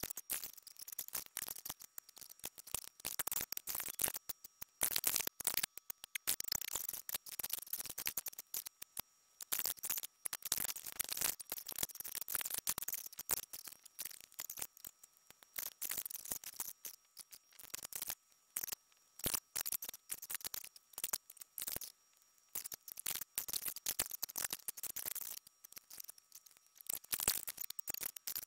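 Rapid, choppy clicking and clattering of spotted gum hardwood strips being handled and laid down against each other in sped-up audio.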